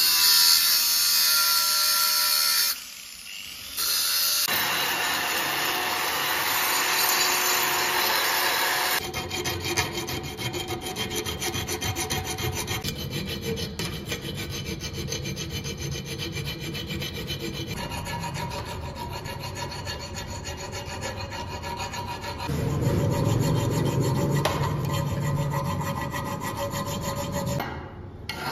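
Wood being scraped and rasped by hand. A louder, smoother rubbing for the first several seconds gives way to a fast, even run of fine scraping strokes.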